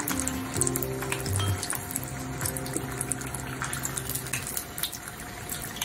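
Starch-coated tofu deep-frying in a small pot of oil, a steady crackling sizzle that has calmed down, the sign that the tofu is nearly done. Chopsticks click against the pot as pieces are lifted out, with soft background music under it for the first few seconds.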